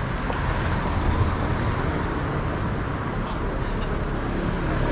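City street traffic: a steady wash of road noise from passing cars, with people talking faintly in the background.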